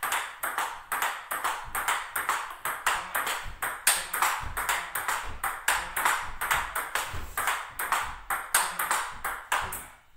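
Table tennis rally: the ball clicks off the table and the two players' bats in a quick, even rhythm of several hits a second.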